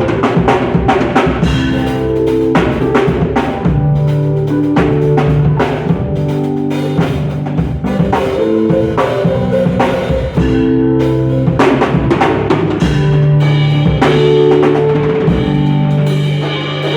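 Music played on a drum kit, with a steady run of kick, snare and rimshot strokes over sustained pitched notes.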